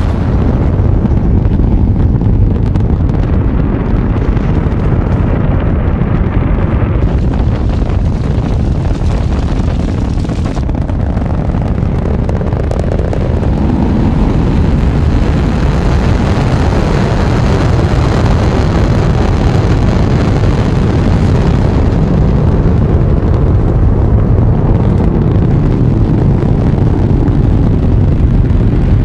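Saturn V rocket launch: the F-1 engines' loud, steady, deep rumble.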